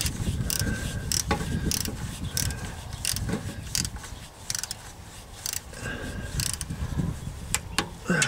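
Hand ratchet clicking in short, irregular runs, about two or three clicks a second, as it drives in the transmission pan bolts.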